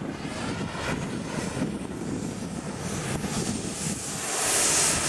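The turbine engine of an RC model F-14 Tomcat jet running on the runway: a high whine over a rushing roar. It grows louder and shriller about four seconds in.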